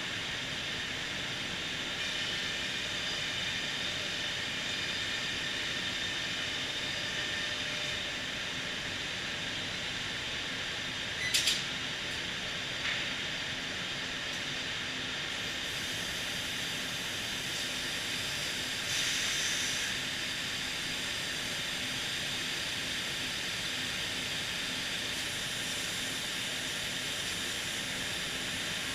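Homag BAZ CNC machining center running: a steady mechanical drone and hiss with faint whining tones, broken by a short sharp burst of hiss about eleven seconds in, a smaller click soon after, and a brief louder hiss a little past the middle.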